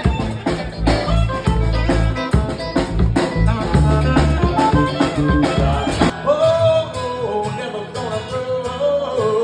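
Live band music: drums, bass and guitar playing with singing. About six seconds in, the drums and bass drop out and a sung melody carries on over lighter accompaniment.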